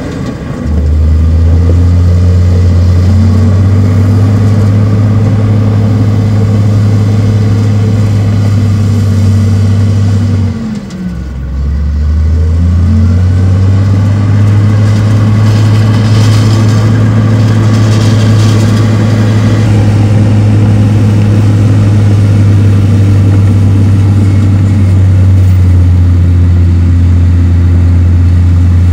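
Heavy diesel engine of earthmoving equipment running steadily under load. Its revs drop about eleven seconds in and climb back up, then it runs steadily again.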